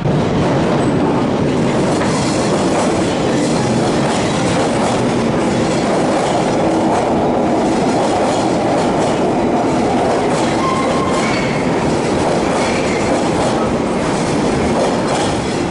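London Underground 1972 Stock tube train running along the platform in a deep-level tube tunnel: a loud, steady rumble of wheels on rail with a few brief faint tones in the second half.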